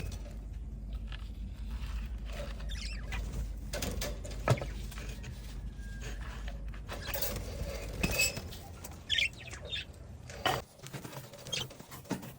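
A bird cage being cleaned by hand: irregular scraping, rustling and clattering of cage parts, with a sharp knock about four and a half seconds in. A low hum underneath stops near the end.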